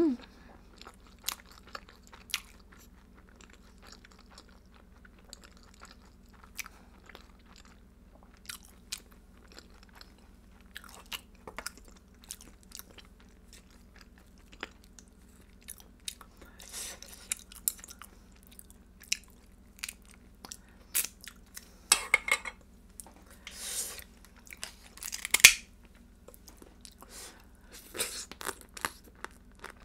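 Close-up chewing and biting on spicy marinated raw blue crab, with crunches and wet clicks of mouth and shell. The sounds come in scattered short bursts, the loudest clustered in the second half.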